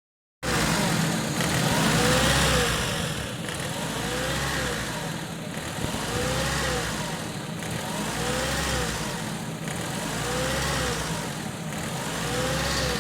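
Car engine idling steadily during a coolant burp, to purge trapped air from the cooling system. A faint whine rises and falls about every two seconds.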